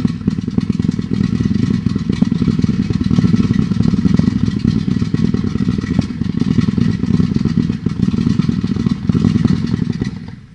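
Brothers Pyrotechnics Combat Zone, a 210-shot 500-gram zipper cake, firing a dense, unbroken stream of rapid shots. The shots fade and stop near the end.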